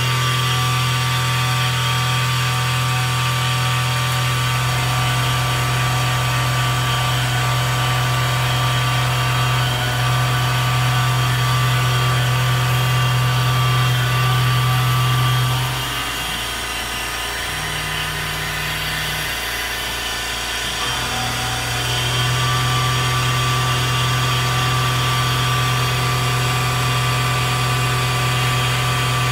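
PM-25MV milling machine's spindle running under CNC as an end mill cuts aluminum, a steady machine hum with a constant whine above it. About halfway through, the hum changes and quiets for several seconds, then returns to its steady note.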